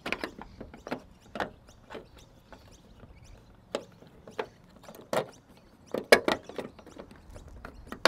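Scattered light clicks and knocks of a replacement plastic exterior door handle being pushed and seated into a 2010 Nissan Pathfinder's rear door, the loudest two a second apart past the middle.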